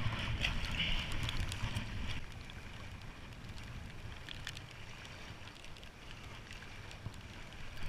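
Wind buffeting the microphone over small waves lapping on a pebble shore, with footsteps splashing in shallow water during the first couple of seconds.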